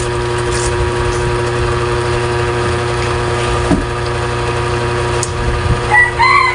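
A steady mechanical hum, a small motor running with a constant low drone and a few fixed tones. Near the end a rooster starts to crow.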